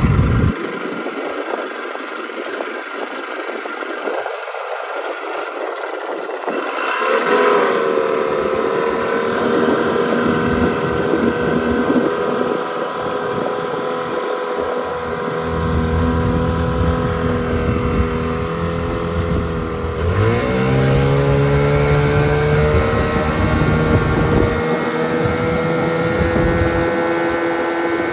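Evinrude 9.9 hp outboard motor running under way, pushing a small boat. Its pitch climbs about seven seconds in, holds steady, dips briefly about twenty seconds in, then climbs and holds again.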